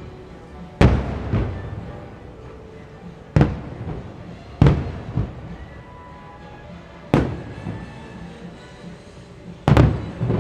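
Fireworks shells bursting in a series of sharp booms one to two seconds apart, each trailing off in a short echo, with a double burst near the end. Show music plays faintly underneath.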